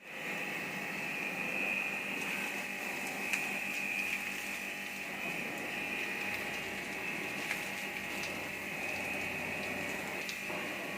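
A small electric motor running steadily with a high whine over a hiss, with a few faint clicks.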